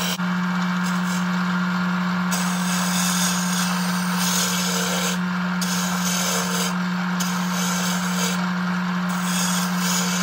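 Wood lathe running with a steady motor hum while a hand-held turning tool cuts the spinning wood blank, a scraping hiss of shavings that breaks off briefly several times as the tool comes off the wood and goes back on.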